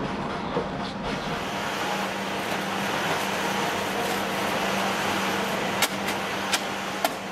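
Steady workshop machinery noise with a constant low hum. Near the end come a few sharp metallic clinks as handfuls of steel spoke wires are grabbed from a metal wheelbarrow.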